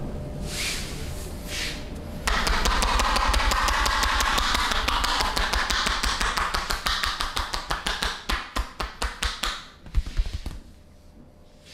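Rapid percussive massage strokes tapping on a person's body. The strokes start about two seconds in as a fast, continuous patter, thin out into separate taps about four or five a second, and end with one louder strike near the end.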